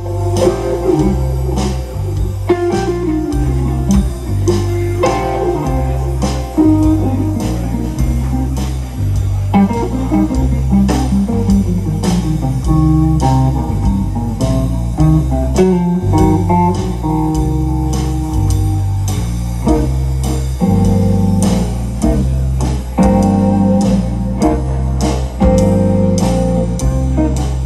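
Live blues band playing an instrumental passage: electric guitar lines over bass guitar and a drum kit keeping a steady beat.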